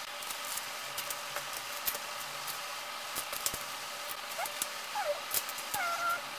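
Small plastic Lego bricks clicking and rattling as pieces are picked from a loose pile and handled, over a steady electrical hum. In the second half, a few short high whines that bend in pitch.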